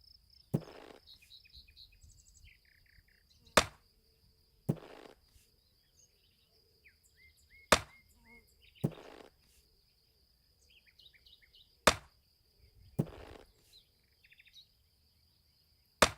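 Axe chopping wood: a sharp crack about every four seconds, each followed about a second later by a duller, longer thump. Birds chirp throughout over a steady high insect drone.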